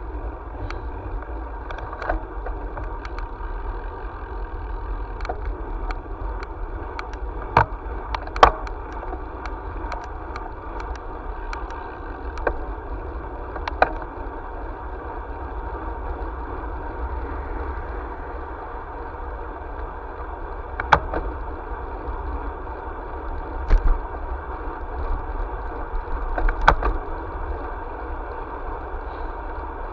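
Steady road and wind noise from a camera riding on a moving vehicle on an asphalt road, with scattered sharp knocks and rattles, the loudest a pair about eight seconds in.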